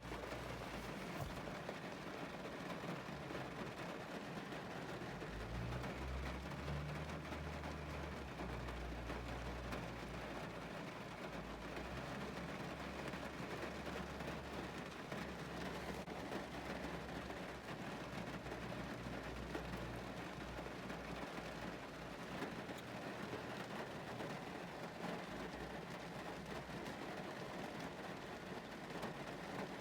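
Heavy rain drumming on a car's roof and windows, heard from inside the car as a steady, even patter. A low rumble sits underneath for about the first two-thirds.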